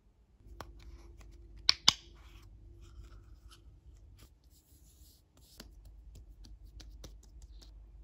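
Close-up handling of plastic skincare bottles: faint taps, rubs and small clicks, with two sharper clicks in quick succession a little under two seconds in.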